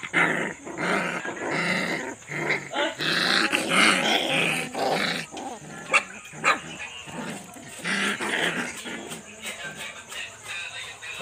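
Two puppies play-fighting, growling and yapping in short, rapid bursts, busiest in the first half and easing off near the end.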